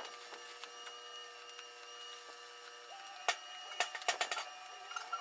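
A steady machine-like hum of several tones, one of which stops about three seconds in, followed by a quick cluster of sharp knocks or clicks.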